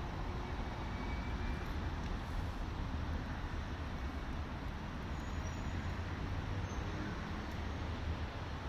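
Steady outdoor background noise: a continuous low rumble with a fainter hiss above it, without any distinct separate event.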